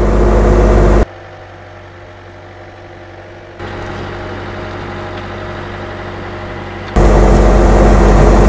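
Skid steer engine running at a steady speed. It is loud and close at first, drops suddenly to much fainter about a second in, and becomes loud and close again about seven seconds in.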